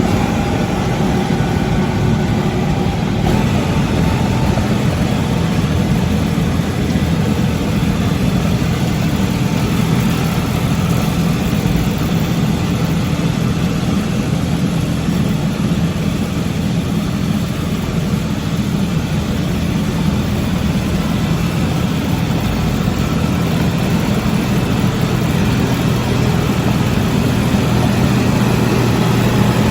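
Tractor engine running steadily, with a low hum that holds level and grows a little louder near the end.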